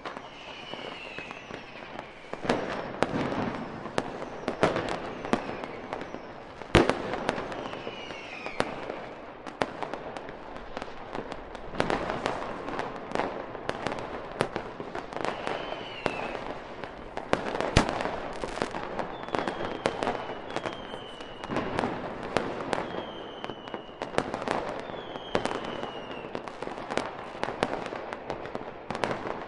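Fireworks display: a continuous run of bangs and crackling, with short whistles sliding down in pitch several times.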